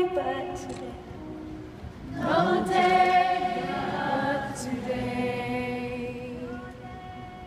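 Live singing of a song's closing phrases, sounding like several voices in unison. A held note fades in the first half second, fresh phrases with vibrato come in about two seconds in, and a long held note closes it.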